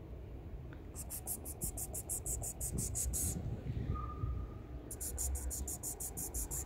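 An insect trilling in two bursts of rapid, evenly spaced high-pitched pulses, about seven a second, the first starting about a second in and the second near the end, each lasting a little over two seconds.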